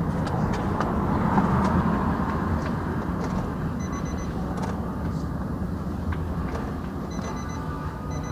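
Steady low background rumble with a few faint clicks as the ignition is switched on and off. No fuel pump priming hum or click is heard: the pump's connector is unplugged, so the pump stays silent at key-on.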